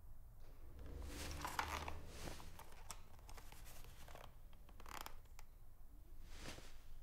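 Faint rustling and scraping handling sounds in three swells, the longest about a second in and shorter ones near five and six and a half seconds, with a few light clicks over a low steady hum.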